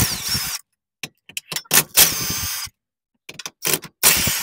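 Cordless impact wrench spinning off the three 17 mm nuts that hold a motor mount to the subframe, in three short runs of about half a second to a second each. There are a few small metallic clicks between the runs.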